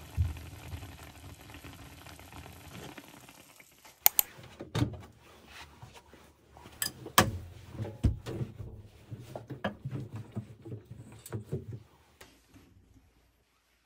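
Food simmering with a steady hiss in a covered pan, which stops abruptly about four seconds in. Then comes a string of sharp clicks and knocks with low thumps, which die away near the end.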